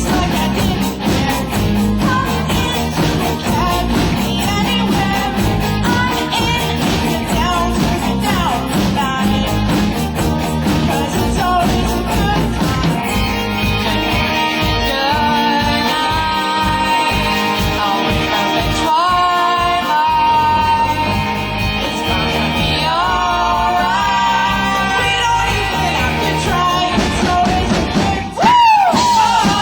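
Rock music with a singing voice, full and steady, with a brief dip in loudness near the end.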